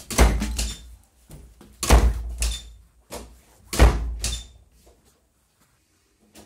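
Wooden interior door banging: three heavy thuds about two seconds apart, with fainter knocks between them.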